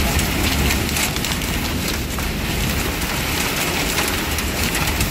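Heavy rain pouring down in a steady hiss, with a low rumble underneath.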